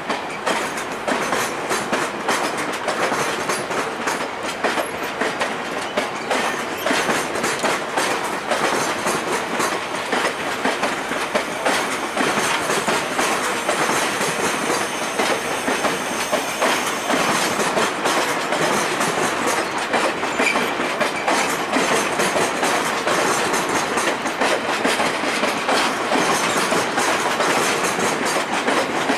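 Stainless-steel Budd passenger cars of VIA Rail's Canadian rolling past as the train departs, their wheels clicking and clacking steadily over the track.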